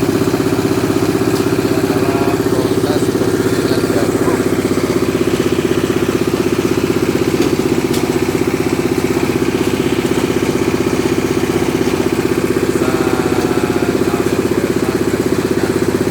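Engine-driven corn grinding mill running steadily, with a fast, even pulsing beat.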